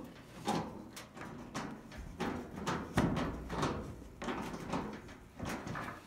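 Irregular knocks and clunks of dryer cabinet panels and parts being handled and fitted back on, with a heavier thump about three seconds in.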